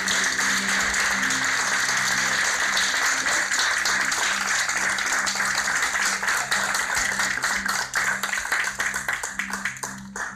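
Audience applauding, thinning to scattered claps and stopping near the end, over background music with low sustained notes.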